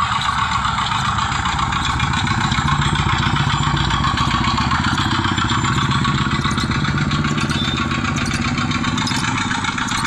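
Small engine of a miniature working-model cement concrete mixer running steadily, with a fast, even beat.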